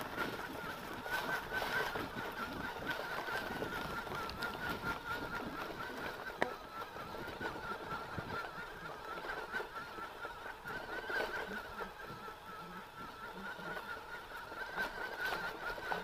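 Mountain bike being ridden over a dirt trail: rolling and rattling noise from the bike, with a steady, slightly wavering high whine throughout and one sharp click about six seconds in.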